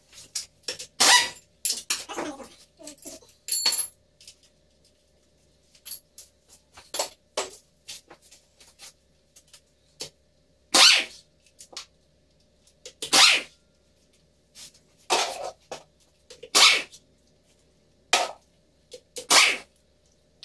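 Pneumatic impact wrench fired in short bursts, about a dozen at uneven intervals, breaking loose and running out the bolts on a backhoe loader's gearbox casing. A faint steady hum runs underneath.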